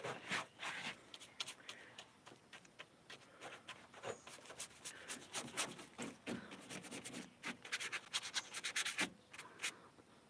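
A paintbrush scraping and tapping in a plastic tub of paint: a run of short, irregular scrapes and clicks, thickest about seven to nine seconds in.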